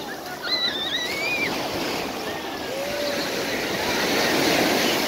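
Surf breaking and washing up on a sandy beach, swelling louder toward the end. A few faint high-pitched cries come about a second in.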